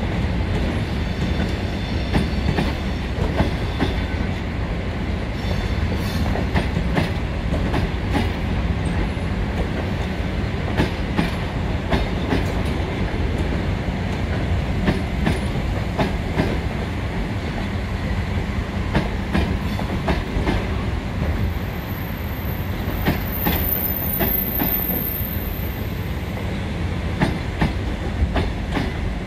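Double-deck passenger coaches of a departing train rolling slowly past: a steady wheel rumble with irregular clicks and clatter of wheels over rail joints. A thin high squeal from the wheels runs for a few seconds in the latter part.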